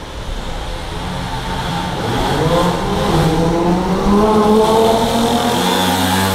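Small two-stroke engine of a red mini dirt bike revving up as the rider accelerates, its pitch climbing for a couple of seconds and then holding, in a concrete parking garage.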